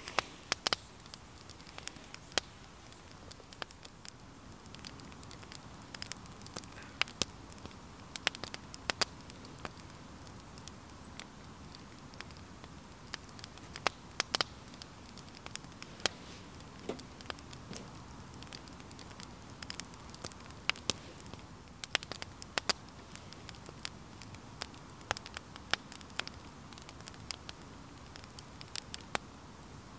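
Small wood fire crackling in a FireHiking twig stove: irregular sharp pops and snaps over a faint steady hiss.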